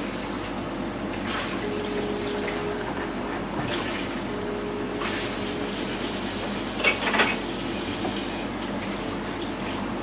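Palette knife scraping and dabbing thick oil paint onto a stretched canvas in scratchy strokes a second or two apart, with two sharper, louder strokes close together about seven seconds in.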